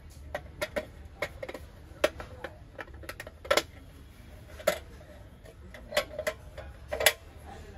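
Brass utensils being handled and set down: about a dozen irregular sharp knocks and clinks, each with a brief ring, the loudest a little past the middle and near the end.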